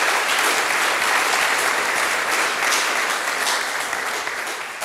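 Audience applauding a conference talk, steady clapping that fades out near the end.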